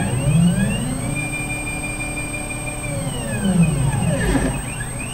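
Stepper motors of a CNC gantry machine whining as the gantry moves its head across the bed. The pitch rises as the move speeds up, holds steady for about two seconds, then falls as it slows. A second short rise and fall comes near the end.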